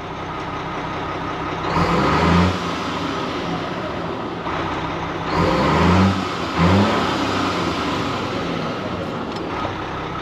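Cummins M11 straight-six diesel in an ERF EC11 lorry idling, then blipped up three times and let off the throttle, each rev falling straight back to idle. This is a test of newly fitted Jake brakes switched on to setting 2, and no engine-brake bark follows on the overrun: the brakes are not working, which the owner suspects is because this ECU is not programmed for them.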